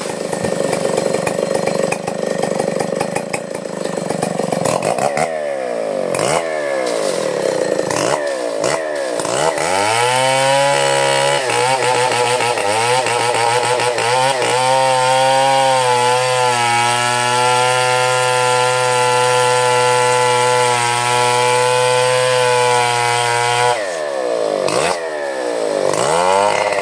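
Petrol chainsaw cutting through a felled coconut palm trunk. It runs at high revs, revs up and down from about five seconds in, then holds a steady, lower pitch under load through the cut, and revs up and down again near the end.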